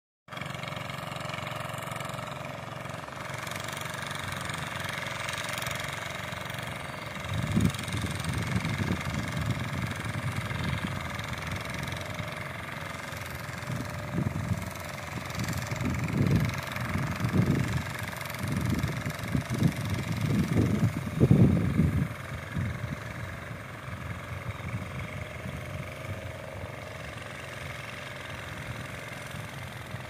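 An engine running steadily, with irregular low rumbling surges through the middle.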